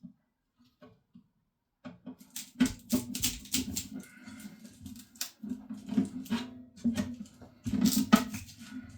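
The cut metal boiler tank being pried and peeled open by hand: after a near-silent start, a run of sharp clicks, scrapes and uneven creaking begins about two seconds in.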